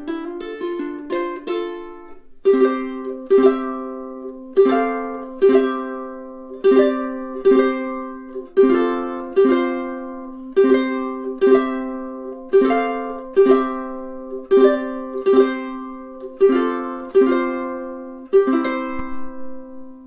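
All-solid acacia Snail S20T tenor ukulele being played solo: a quick run of notes for the first two seconds, then strummed chords at about one a second in a lilting long-short rhythm. The last chord, near the end, is left to ring out and fade.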